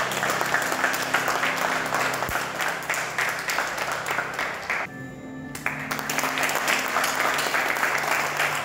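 A small crowd applauding over background music. The clapping drops away briefly about five seconds in, then picks up again.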